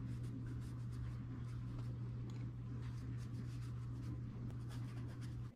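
Faint scratchy strokes of a flat brush laying acrylic paint on canvas, over a steady low electrical hum. Everything cuts off suddenly at the end.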